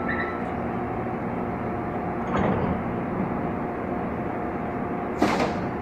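Taipei Metro C301 train's sliding doors closing about two and a half seconds in, over the steady hum of the train standing at the platform. A short, sharp hiss a little after five seconds is the loudest sound.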